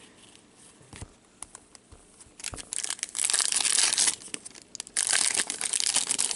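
A wrapper on a 2015-16 Upper Deck Series 2 hockey card pack crinkling and tearing as it is ripped open. The loud crinkling comes in two stretches, starting about two and a half seconds in, after a few faint taps of cards being handled.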